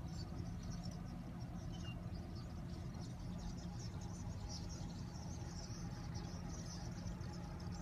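Outdoor ambience of high-pitched insects chirring steadily, over a low steady mechanical hum. One brief chirp about two seconds in.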